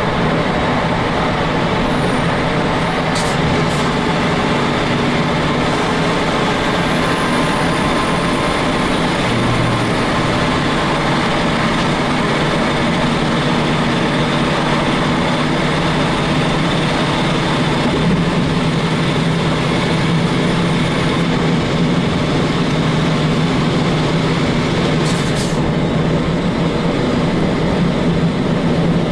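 Semi-truck diesel engine running steadily under way, heard from the cab, with a few brief sharp sounds about three seconds in and near the end.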